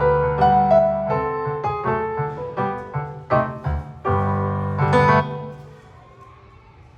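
Background piano music: a melody of struck notes over sustained bass notes, ending on a final chord about five seconds in that fades away.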